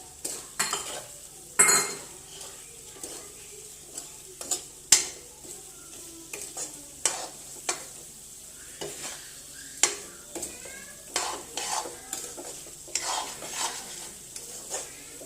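A cooking utensil scraping and clacking against a pot in irregular strokes, stirring in a freshly added spice mix of turmeric, cumin-coriander powder and curry masala, which sizzles faintly underneath.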